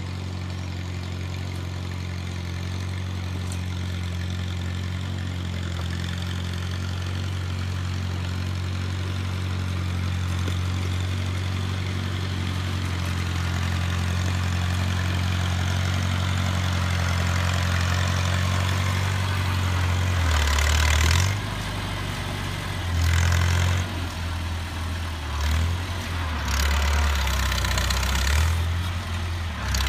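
1949 Farmall Cub's four-cylinder flathead engine running steadily, growing louder over the first twenty seconds. In the last ten seconds several short, loud rushes of noise break in over the engine.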